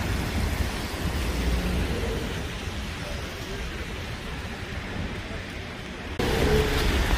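Traffic on a rain-wet street: an even hiss of tyres on wet pavement over a low rumble, fading gradually, then turning suddenly louder near the end.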